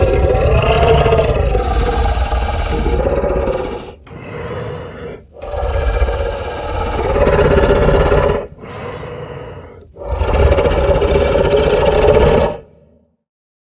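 Cartoon dinosaur roars: five calls in a row, three long loud ones with two shorter, quieter ones between them.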